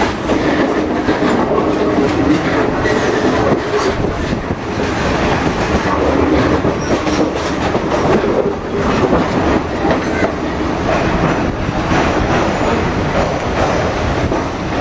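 Passenger train carriage in motion, heard from inside by an open doorway: a steady loud rumble of the running train, with the wheels clicking and clattering over the rail joints.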